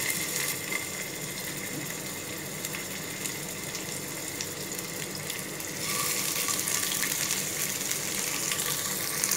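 Raw mutton rolls sizzling gently in shallow oil in a frying pan on low heat, a steady hiss with fine crackles. The sizzle grows louder about six seconds in as a second roll goes into the oil.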